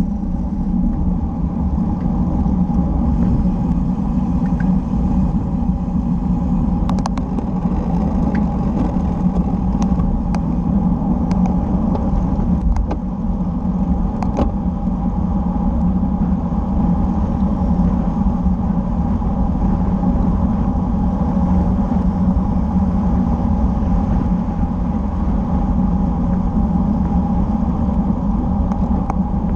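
Steady wind and road rumble picked up by a bike-mounted camera while riding, with a few faint light clicks about a third of the way in.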